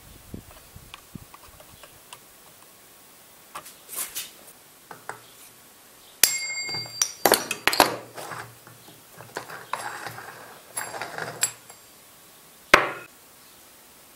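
Small metal chainsaw parts and hand tools clinking, tapping and knocking on a workbench while a chainsaw is dismantled. A clear ringing metallic ping comes about six seconds in, busy clattering follows, and a single sharp knock comes near the end.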